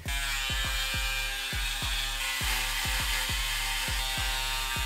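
Braun Series 3 electric foil shaver buzzing steadily as it is run over several days' stubble on a head, under background music with a steady thumping beat of about three beats a second.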